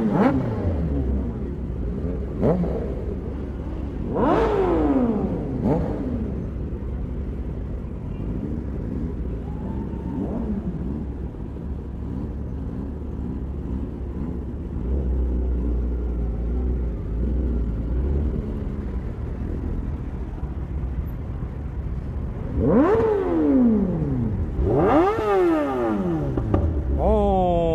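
Inline-four superbike engines idling with a steady low rumble. The throttle is blipped at the start, about four seconds in, and three times in the last five seconds, and each time the revs climb and then fall away.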